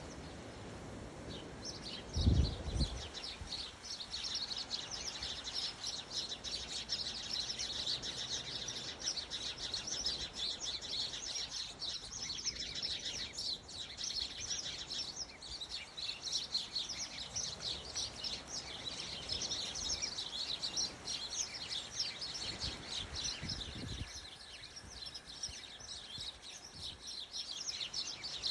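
Many small birds chirping rapidly and continuously, a dense flock chatter of high chirps. A brief low thump about two seconds in is the loudest sound.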